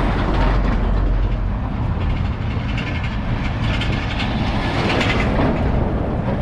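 A heavy vehicle passing close by: a loud, steady rumble with rushing noise.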